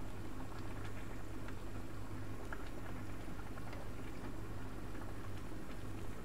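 Soup bubbling at a simmer in a wide pan, with a metal ladle stirring and a few light clinks, over a steady low hum.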